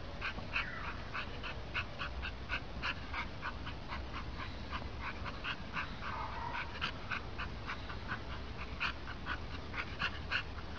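A dog panting hard with short whimpers, about three or four quick breaths a second, from the effort of leaping again and again at a hanging ball.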